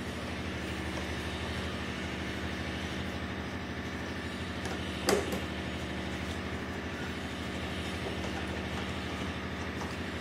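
A steady background hum from an unseen machine, with one sharp metal clink about five seconds in from a spanner working the motorcycle's seat-mounting bolts.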